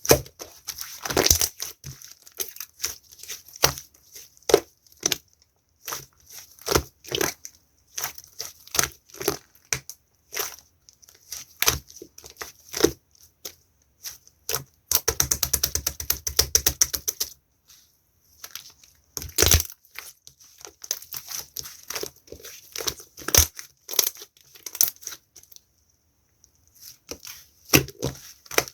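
Slime being played with, giving many short pops and crackles, with a dense run of rapid pops midway and a pause of a couple of seconds near the end.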